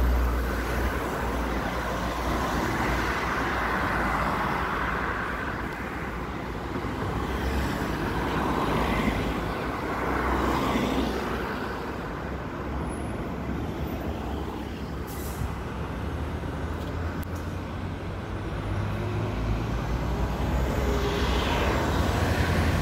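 Street traffic: a city bus's diesel engine running close by at the start, then a steady wash of passing road traffic that swells again near the end.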